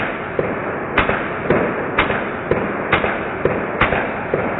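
A rapid string of gunshots, about two a second, some sharper and louder than others, over a steady noise.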